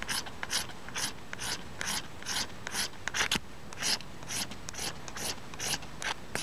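Steel scraper rasping shavings off a magnesium fire-starter rod, about two short, even strokes a second. It is the first step in lighting a fire: the magnesium shavings are made before sparks are struck.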